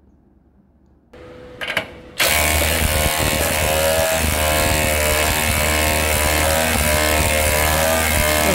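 Milwaukee M12 12-volt cordless impact driver, with a socket adapter on a car's scissor-jack screw, running continuously under load from about two seconds in as it winds the jack up and lifts the car. A couple of clicks come just before, as the socket seats on the jack's eye.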